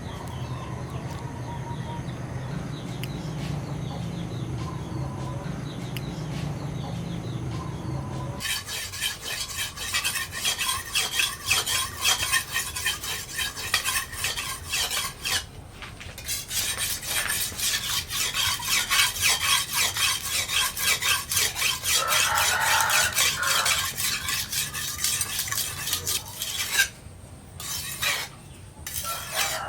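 Fast, repeated back-and-forth scraping on the knife's steel, starting about eight seconds in, with short pauses around the middle and near the end.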